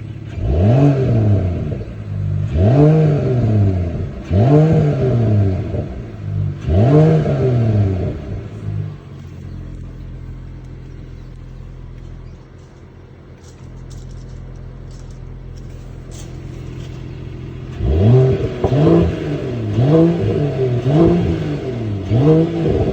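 Mercedes-AMG GT 53's turbocharged inline-six, with its exhaust flaps open, revved while standing: four long blips about two seconds apart, each rising and falling in pitch, then idling for several seconds, then a quick run of about five shorter blips near the end.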